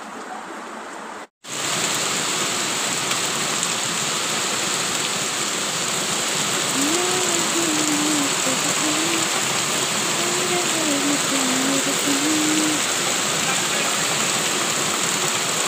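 Heavy rain falling on a street and rooftops, a loud steady hiss that starts abruptly after a brief gap about a second and a half in. A faint wavering tone rises and falls under it in the middle stretch.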